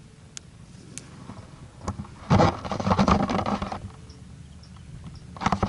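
Close rustling and scraping of handled gear right at the microphone. It is loudest for about a second and a half near the middle and rises again at the end, over a low steady rumble.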